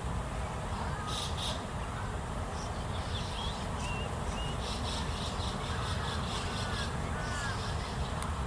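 Crows cawing in harsh bursts, a few times, with thin high peeping calls between them over a steady background hum.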